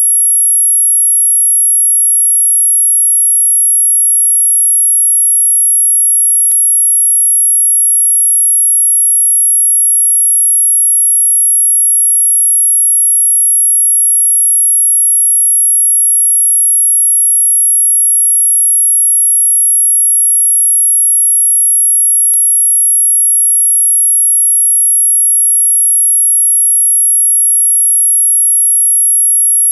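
A loud, very high-pitched pure electronic tone held perfectly steady throughout, the kind of high-frequency tone played to stop dogs barking. It is broken only by a faint click twice, about 16 seconds apart.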